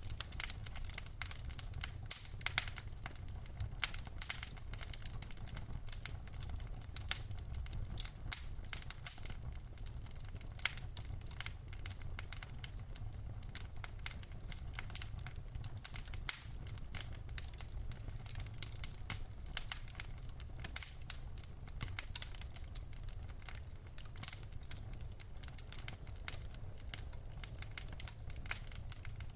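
Wood fire in a fireplace crackling: dense, irregular snaps and pops from the burning logs over a steady low rumble of the flames.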